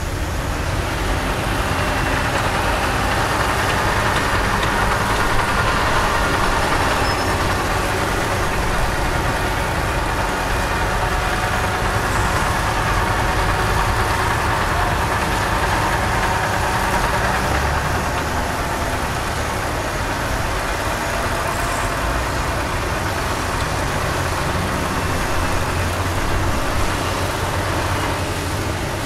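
Heavy diesel construction machinery running steadily, with a rushing noise over the engine that builds about a second in and drops away near the end.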